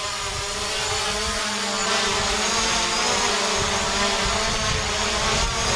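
Small quadcopter drone's propellers buzzing steadily in flight, a busy whine of several pitches over a hiss.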